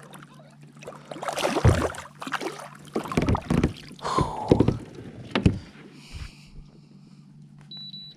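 Knocks and rubbing noises of fishing gear being handled in a small boat, over a steady low hum. A short high beep near the end.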